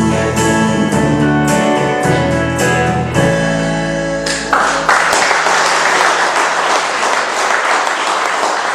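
Yamaha arranger keyboard playing the closing bars of a song, its last low chord fading; about halfway through, audience applause breaks out and carries on.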